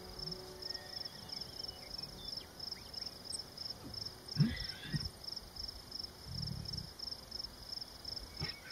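Insects chirping steadily in a high, even pulse of about four chirps a second. A brief louder sound cuts in about halfway through.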